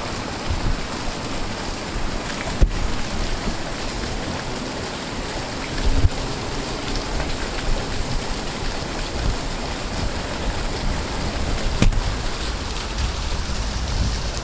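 Steady rush of river water spilling over a small waterfall and rocks, with a few soft knocks.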